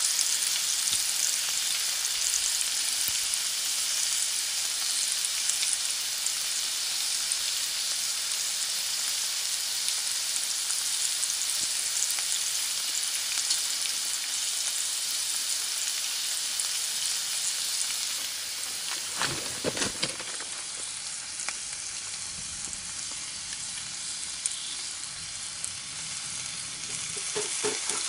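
Meat sizzling on a hot grill plate, a steady crackling hiss. It drops a little after two thirds through, with a few knocks just after and more clicks near the end.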